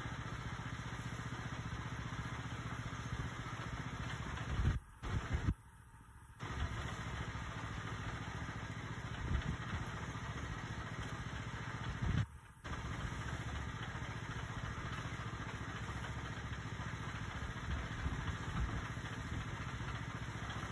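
Engine-driven concrete mixer running steadily. The sound cuts out briefly about five seconds in and again about twelve seconds in.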